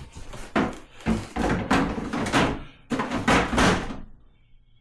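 Plastic ice bin of a fridge's ice maker being slid and knocked back into place in the freezer compartment: a run of clattering knocks and scrapes over about four seconds, stopping near the end.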